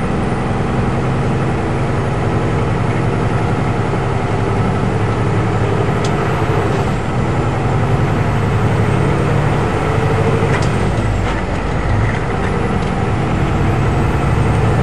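Diesel truck engine running steadily, a constant low drone heard from inside the cab while driving.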